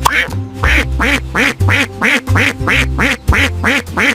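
Duck quacking in a quick steady run, about three or four quacks a second, over background music with a steady bass line.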